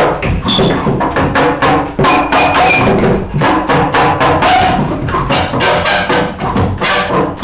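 Music with a fast, steady percussive beat of wood-block-like knocks and drums over sustained pitched instrument tones.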